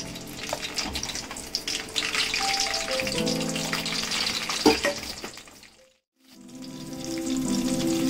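Small cut brinjals sizzling as they fry in hot oil in a kadai, over background music. The sound drops out briefly a little after halfway.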